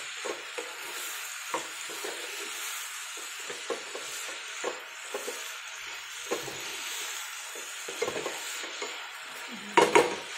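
Wooden spatula stirring and scraping chopped vegetables in a non-stick kadhai over a gas flame, with a steady light sizzle underneath. Near the end the spatula knocks against the pan a few times, louder than the stirring.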